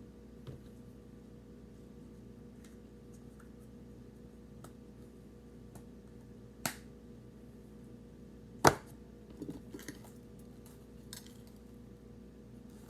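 Scattered small clicks and two sharp knocks, the second one, nearly 9 seconds in, the loudest and followed by a few softer clicks. A steady low hum runs underneath.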